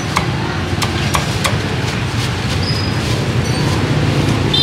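Steady rumble of street traffic, with sharp knocks scattered through it from a cleaver chopping roast pork on a chopping board.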